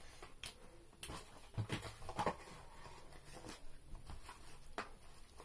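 Small objects being handled and put down: a few light clicks and soft knocks at uneven intervals, loudest about two seconds in.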